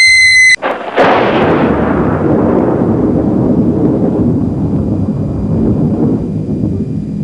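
A high steady whistle-like tone cuts off about half a second in. Then a sudden crash turns into a long rumble that slowly fades, like a thunderclap.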